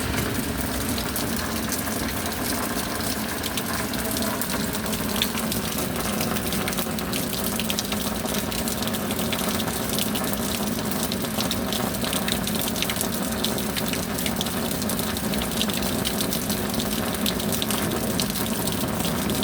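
Steady rain with a constant rush of running water and scattered sharp drop ticks, unchanging throughout.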